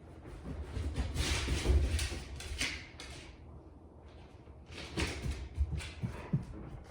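A Labrador's footsteps on a hard floor: irregular light taps of paws and claws in two spells, with a pause of about a second and a half in the middle.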